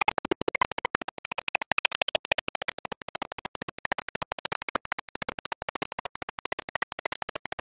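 Experimental electronic music: a sound chopped into rapid stuttering pulses, about ten a second, with a scratchy texture.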